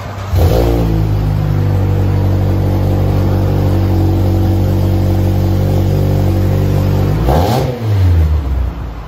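Exhaust note of a 2009 Mitsubishi Lancer's four-cylinder engine through a Flowmaster DBX muffler and Vibrant resonator, revved up quickly and held at a steady high rpm for about seven seconds. The revs then drop back near the end.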